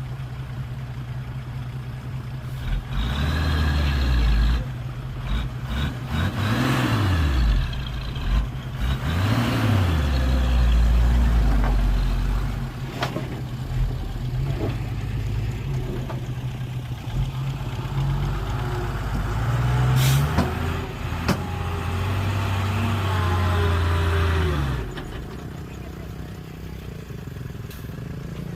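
Heavy diesel engines of earthmoving machinery running, with one revving up and down several times from about three seconds in and settling back to a steadier, quieter run near the end. A sharp click sounds about twenty seconds in.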